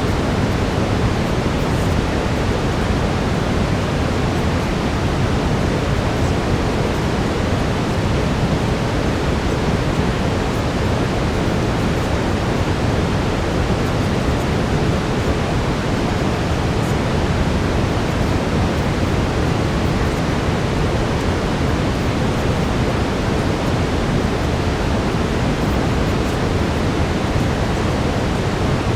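Steady brown noise: an even, deep hiss, heaviest in the bass, with no changes.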